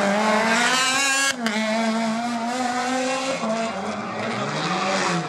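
Rally car engine at high revs: the note climbs for about a second, cuts sharply on a gearshift, then holds high with a brief lift about three seconds in.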